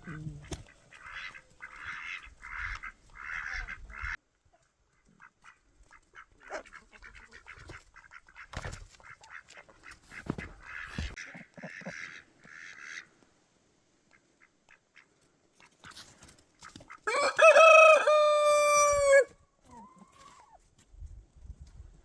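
A rooster crows once, loud and about two seconds long, near the end. Before that come two runs of short, evenly spaced rustling steps.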